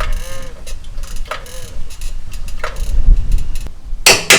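Torque wrench being worked on a chassis-bar bolt: a few short metallic clicks and clinks about a second apart over handling noise, then a sharp, loud metal click near the end.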